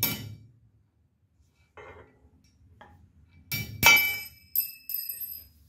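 One hammer tap on a steel engine push rod at the start. About three and a half seconds in comes a quick clatter of metallic clinks as the rod falls, then a high ringing tone that dies away over about a second and a half.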